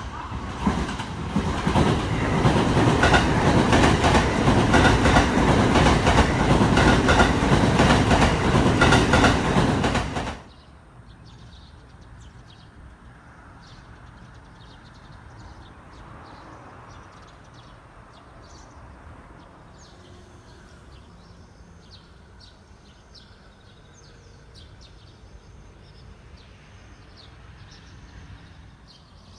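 Electric train on the Hanwa Line running through the station, wheels clattering rapidly over the rail joints. The sound cuts off suddenly about ten seconds in, leaving a quiet background with faint, repeated high chirps.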